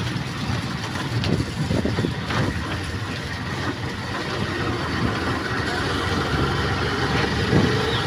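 Vehicle engine running steadily with road noise, heard from aboard a vehicle moving along a rain-wet road.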